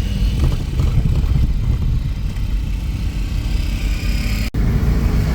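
Road and engine noise of a moving car, heard from inside, a steady low rumble. The sound drops out for an instant about four and a half seconds in.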